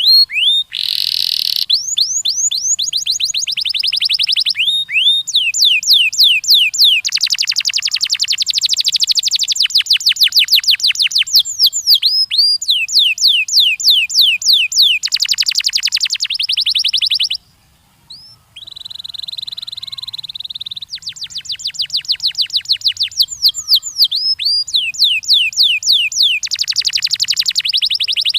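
Domestic canary singing: long, fast trills of repeated high chirps that switch from one trill type to another every few seconds, with a brief break about two-thirds of the way through.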